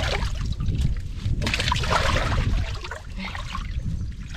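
Water sloshing and trickling with scattered small splashes, over a steady low rumble.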